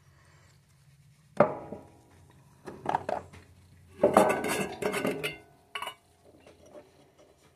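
Hard objects clinking and clattering as tools and small reel parts are handled on a work tray. A sharp click about a second and a half in, a few short knocks, then a louder run of clattering lasting over a second and a final short clink.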